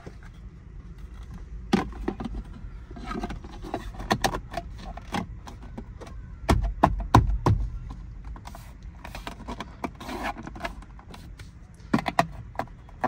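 Hand tapping and gripping the passenger grab handle on a Jeep Wrangler JK dashboard: a run of light clicks and knocks on the handle and trim, with a cluster of heavier thumps about halfway through.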